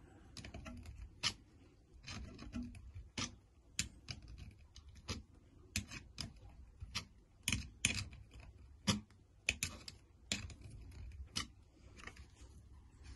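Irregular small clicks and creaks of a hand screwdriver driving a screw into a freshly drilled hole in a plastic RC car part, cutting a thread in the plastic, roughly one or two clicks a second as the tool is turned and regripped.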